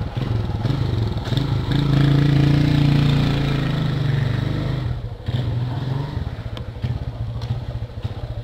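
Motorcycle engine running under way. It revs up about two seconds in, then eases off around five seconds in as the throttle closes, running on at lower, rougher revs.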